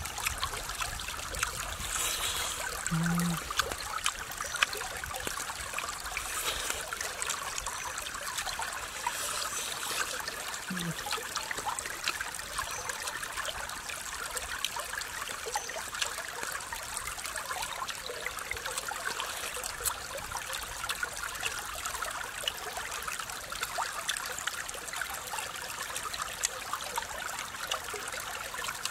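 Shallow stream rippling steadily over rocks.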